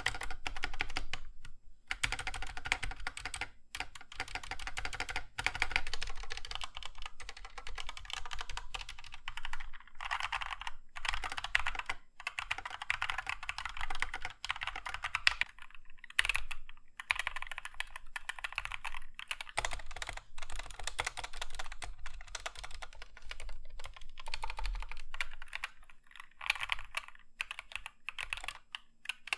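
Fast, continuous typing on budget 60% mechanical keyboards with brown and Gateron optical switches: a dense run of key clacks with a few brief pauses. The unlubed boards are pretty loud out of the box.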